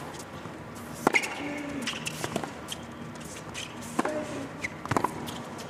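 Tennis rally on a hard court: sharp pops of the ball coming off the rackets, about one every second to second and a half.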